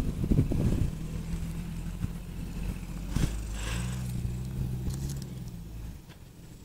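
Lifted Jeep Wrangler TJ's 4.0-litre straight-six engine running as it climbs a sandy trail. The revs pick up about four seconds in, then the sound falls away about six seconds in as the Jeep moves off. A few low thumps come in the first second.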